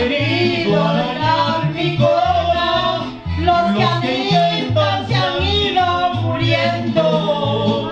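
Live mariachi band playing a song with singing: a guitarrón plays the bass line in short held notes under strummed guitars and a trumpet.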